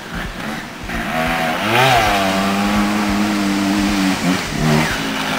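Single-cylinder two-stroke engine of a 250cc TRS trials motorcycle revving. Its pitch climbs about two seconds in and holds high for about two seconds, then it drops and is blipped twice near the end.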